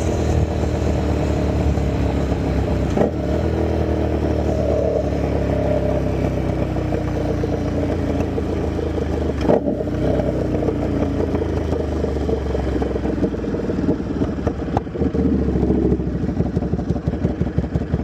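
Buell 1125R's V-twin running loud through a custom muffler, its note falling as the revs drop and then holding steady. There are a couple of sharp clicks along the way. Near the end it settles into a loping idle of separate exhaust pulses, an idle the owner says isn't quite right since the exhaust change and needs a tune.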